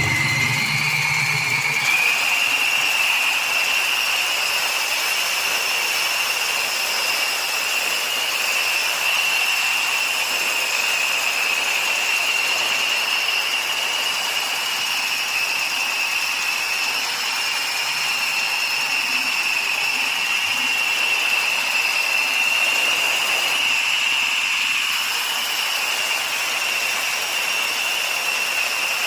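High-pitched mechanical whine from something spinning fast: it rises in pitch over the first two seconds, then holds steady with a faint hiss.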